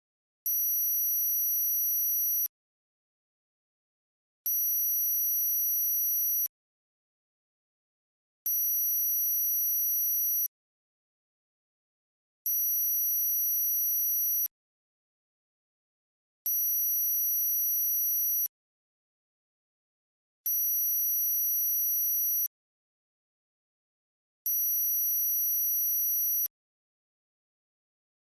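Synthesised very high-pitched tinnitus-masking tone, pulsing two seconds on and two seconds off, seven times.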